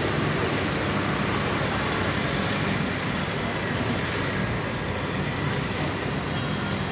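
Steady construction-site noise: the low hum of heavy machinery running under a constant wash of wider noise.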